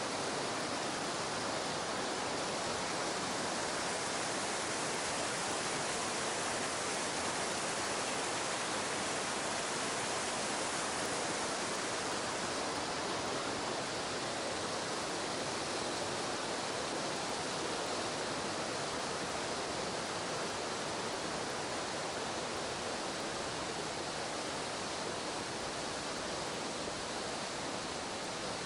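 Steady rush of a mountain stream and waterfalls in a gorge, an even, unbroken noise.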